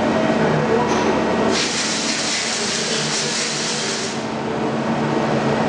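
Steady machine hum of a Mazak Integrex e-650H-II CNC turning and milling centre running. About one and a half seconds in, a loud hiss starts and runs for roughly two and a half seconds before it cuts off.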